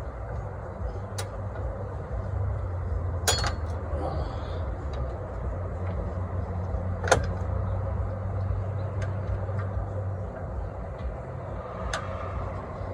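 Sharp metallic clicks and clinks from hand tools and brake-shoe return springs being worked onto a truck's drum brake, a handful of separate strikes with the loudest about seven seconds in, over a steady low mechanical hum.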